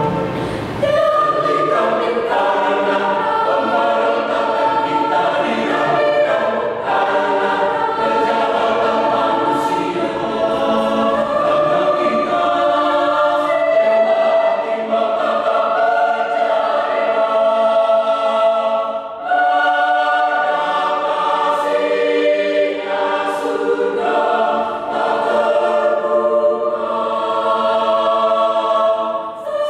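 Mixed-voice choir of women and men singing a hymn in parts, with a brief break for breath about two-thirds of the way through.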